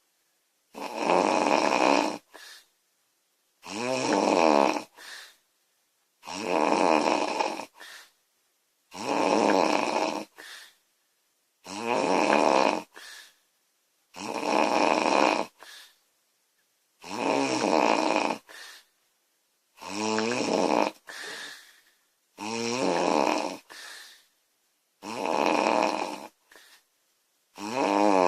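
A woman snoring loudly in a steady rhythm, one long snore roughly every two and a half to three seconds. Each snore is followed by a short, quieter sound.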